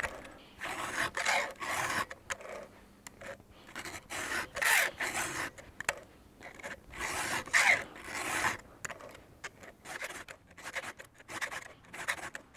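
Stihl two-in-one file guide rasping across the cutters of a worn chainsaw chain in a series of push strokes, about one or two a second, the file lifted on each return. The strokes get quicker and lighter near the end.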